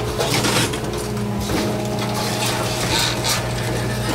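John Deere excavator's diesel engine and hydraulics running with a steady hum that shifts in pitch as the arm works. Over it, wood and sheet-metal debris crunches, cracks and scrapes in irregular bursts as the house is torn into.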